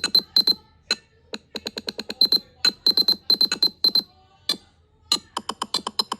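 Nothing Phone (1) ringtone: rapid, very short electronic blips and clicks in stuttering clusters with a bright high tone. Just after five seconds in, a different pattern of blips begins.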